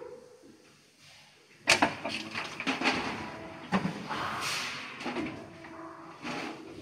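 Injection moulding machine cycling a flip-top cap mould: a sharp clunk as the mould moves, about two seconds in, then a run of mechanical clicks and clatter with a short hiss, and another clunk near the end.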